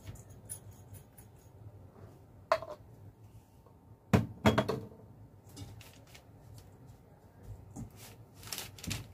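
Kitchen handling sounds: faint clicks, a sharp knock about two and a half seconds in and a pair of louder knocks about four seconds in as containers and a stainless steel mixing bowl are handled, then soft rustling as hands mix bread dough in the bowl.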